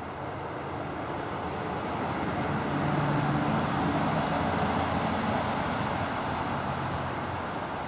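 A road vehicle going by: a rushing noise with a low engine hum that swells to its loudest about three seconds in, then fades slowly.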